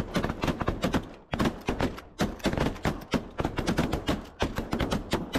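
A volley of shotgun fire at a flock of snow geese: several shotguns firing many blasts in quick, overlapping succession.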